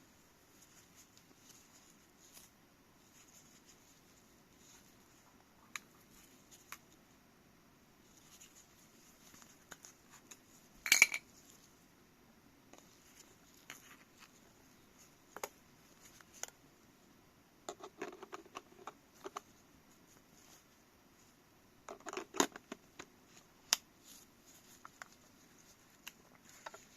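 Small objects being handled: scattered light clicks, taps and rustles, with a sharp clattering knock about a third of the way in and another quick cluster of clicks and knocks later on.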